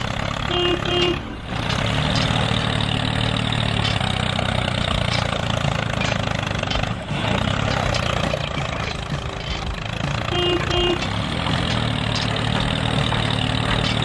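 Steady tractor-engine running sound for a toy remote-control tractor pulling a loaded trailer. A short two-note tone comes about half a second in and again about ten and a half seconds in.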